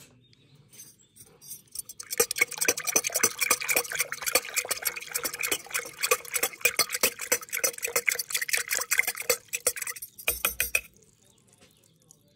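A spoon stirring water briskly in a plastic container, with rapid clinking and scraping against the sides. It starts about two seconds in and stops near ten seconds, then a few last clinks follow.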